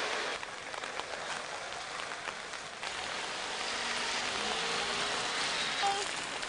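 Steady hiss of rain falling on a wet city street, with a few faint ticks now and then.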